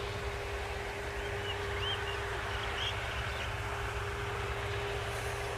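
Steady outdoor background: a low rumble with a constant droning hum, and a few short high chirps about two to three seconds in.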